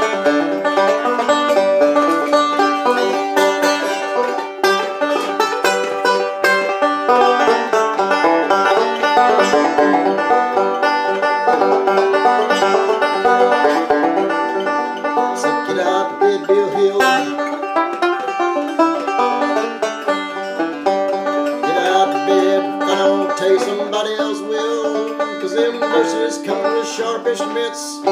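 Resonator banjo played solo, a tune of rapid picked notes that runs without a break.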